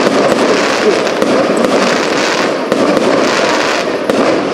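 Aerial fireworks display: a dense, unbroken barrage of many sharp cracks and bangs from bursting shells and crackling stars.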